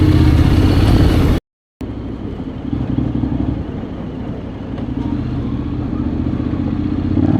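Honda X-ADV 750's parallel-twin engine running as the bike is ridden, with a steady rush of road noise. The sound cuts out completely for a moment about one and a half seconds in, then comes back quieter and slowly grows louder toward the end.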